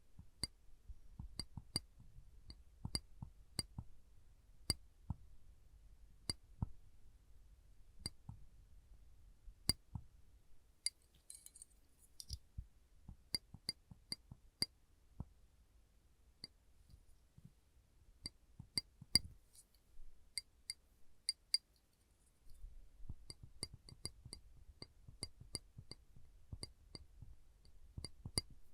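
Silver metal clips being pressed and released over and over, giving sharp, irregular clicks with a light metallic ring. There is a brief rustle about eleven seconds in.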